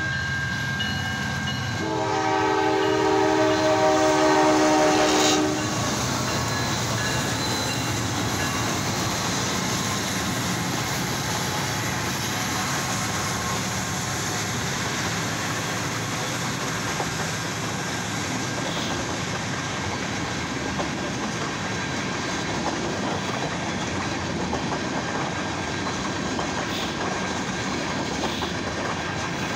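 Freight train's locomotive air horn sounding a multi-note chord, briefly at the start and then in one long, louder blast about two to five seconds in. After that, the train's cars roll past the crossing with a steady rumble and wheel clatter.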